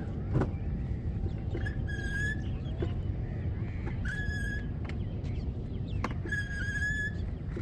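Wheel of a heavily loaded kayak trolley squealing as it is pulled: three drawn-out, even-pitched squeals about two seconds apart, over a steady low rumble and a couple of light knocks. The cart is straining under the kayak's weight.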